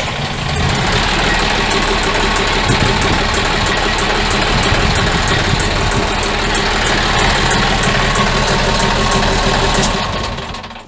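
A boat's diesel engine idling steadily just after a start, running easily and smoothly; the sound fades out near the end.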